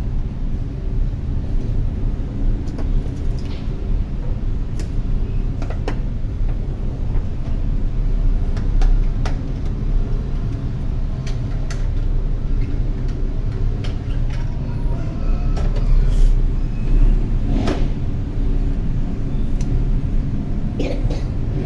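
Steady low background rumble with a handful of scattered light clicks and taps from small phone parts and tools being handled during a battery replacement.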